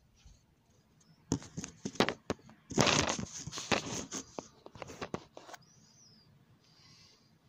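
Handling noise from a phone being picked up and moved: a run of sharp clicks and knocks, then a dense rustle of rubbing about three seconds in, with a few more clicks before it settles.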